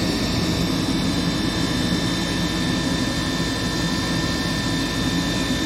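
Gas furnace draft inducer motor running steadily with a whine and hum, the sound of a worn motor that had seized and been spun free by hand and is going bad.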